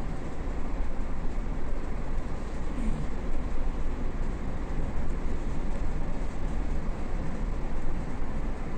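Steady rumble and hiss of a vehicle on the move: low road and engine noise that holds without a break.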